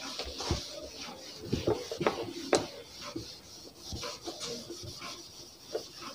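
Whiteboard eraser rubbing back and forth across a whiteboard, with a few short knocks as it bumps the board, the sharpest about two and a half seconds in.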